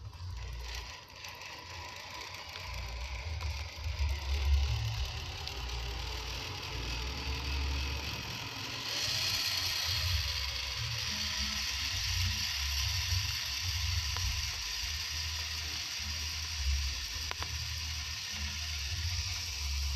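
A 1/10-scale RC Jeep Wrangler Rubicon crawler's electric motor and gearbox whirring as it drives over wet concrete. Low rumbling on the microphone runs throughout, and a steady hiss grows stronger about nine seconds in.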